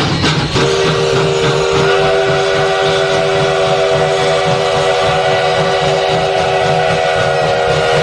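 Sierra Railway No. 3 steam locomotive's whistle blowing one long chord. It starts about half a second in, and higher notes join about two seconds in. Under it is the low, pulsing rumble of the moving train.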